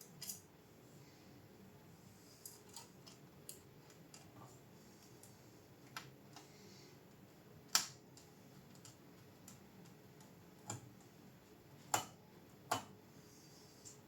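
Scattered light clicks and taps of small hard parts being handled, with sharper knocks about eight seconds in and twice near the end, over a faint steady background.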